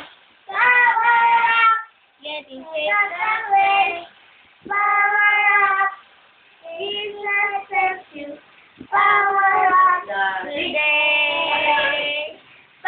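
A two-year-old girl singing unaccompanied, in short held phrases of a second or so with brief pauses between them.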